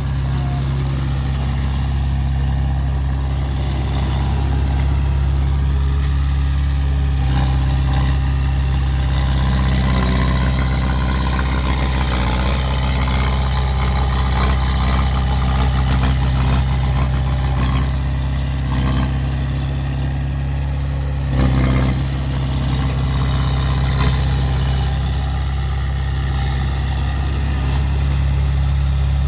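Heavy diesel engine of earthmoving machinery running steadily, with a few brief knocks, the loudest about two thirds of the way through.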